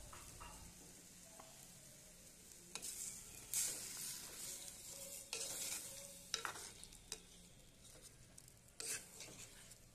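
A ladle stirring mango curry in a clay pot, scraping through the pieces in about five short strokes, over a faint sizzle of the liquid heating in the pot.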